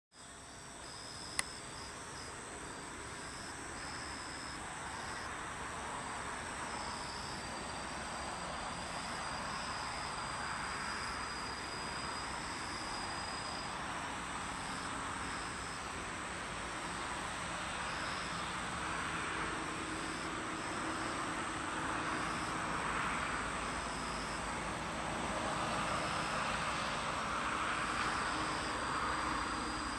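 Insects calling: a high trill that comes in short bursts of roughly half a second to a second, over a steady hiss that slowly swells and fades. A single sharp click about a second and a half in.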